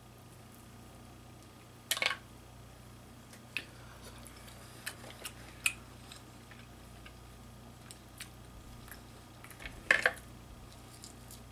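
Close-miked eating sounds from mussels and snow crab legs: scattered small clicks and cracks of shells being handled, mixed with mouth noises. Two louder clicks stand out, about two seconds in and near the end.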